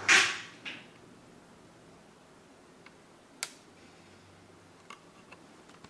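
The electric orangery roof blind's motor hum cuts off as the blind reaches the end of its travel, followed at once by a sharp clack and a smaller knock. Then faint room tone with a few light clicks.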